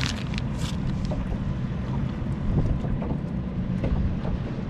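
Steady low hum of the fishing boat's motor, with wind on the microphone. A small plastic packet of pinch weights crinkles in the first second.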